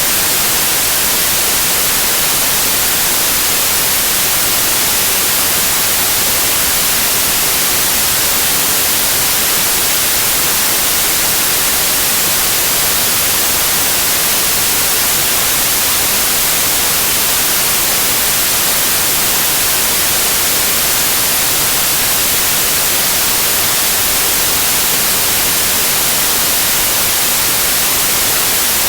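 TV static white noise: an even, unchanging hiss, brightest in the treble.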